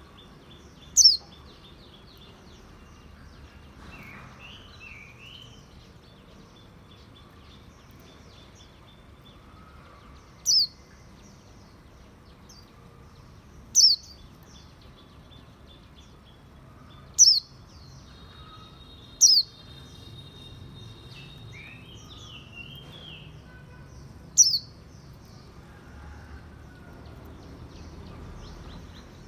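A songbird giving a loud, very short, high call that sweeps sharply downward, six times at irregular gaps of a few seconds. Between these calls, softer warbles and chirps from birds continue in the background.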